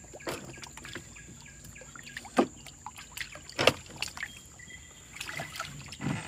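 Knocks and clunks on a small boat's hull while a longline is hauled in by hand: a few sharp knocks, the loudest two about two and a half and three and a half seconds in, and a cluster of smaller ones near the end.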